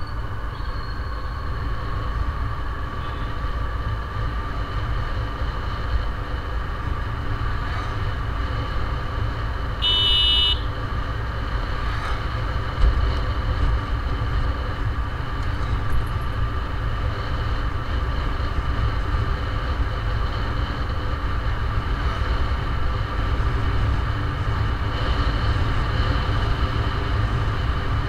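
Steady low rumble of a vehicle driving along a road, with wind and road noise. A horn beeps once, briefly, about ten seconds in, and there is a single thump a little later.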